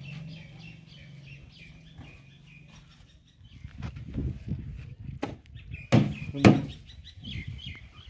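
Cloth wiping and hands handling a tractor's bodywork, with irregular rubbing and two sharp knocks about six seconds in, half a second apart. Small birds chirp in the first few seconds and again near the end.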